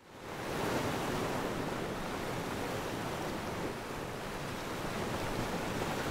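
Steady rushing noise of surf, fading in over the first half second and then holding even.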